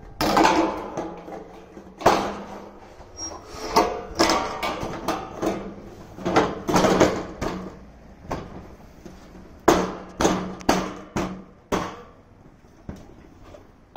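Hammer blows on corrugated metal roofing sheets as they are fastened down, a dozen or more irregularly spaced strikes, each ringing briefly through the sheet; the blows thin out near the end.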